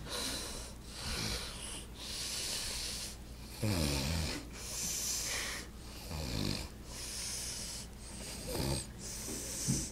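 A man snoring heavily in his sleep. Low, rattling snores alternate with airy, hissing breaths, with the loudest snore about four seconds in.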